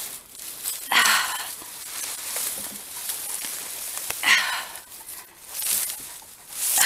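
Four short, breathy exhalations or gasps spread across a few seconds, with dry reeds rustling against the microphone in between.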